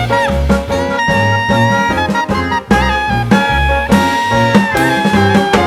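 Background music: upbeat swing-style jazz with brass or saxophone lines over a walking bass beat.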